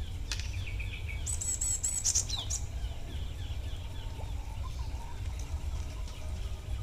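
Small bird giving a rapid, very high chattering trill for about a second, with fainter bird calls around it, over a steady low rumble.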